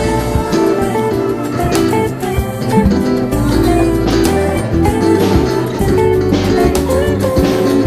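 Music led by guitar, with sustained notes over a continuous low bass line.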